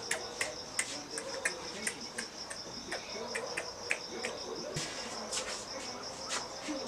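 Crickets chirping: a steady, evenly pulsed high trill with sharper clicks about three times a second.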